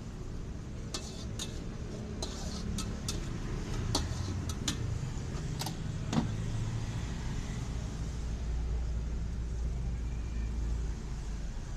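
Low rumble of passing road traffic, building up through the middle and easing off near the end. Several sharp clicks and clinks come in the first half.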